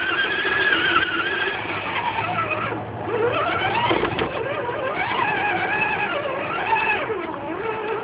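Whine of the electric motor and geartrain of an Axial SCX10 1/10-scale RC crawler, picked up by a camera mounted on the truck, rising and falling in pitch with the throttle. The whine drops about three seconds in, climbs again, and winds down near the end as the truck slows.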